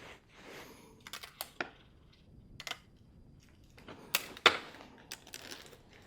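Irregular clicks and knocks of hand work with tools and parts, with brief scraping between them; the sharpest knock comes about four and a half seconds in.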